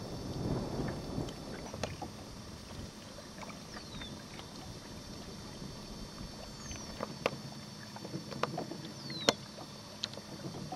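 Lake water lapping against a pontoon boat's hull, with scattered small clicks and knocks. A few short, high, falling bird chirps come at intervals.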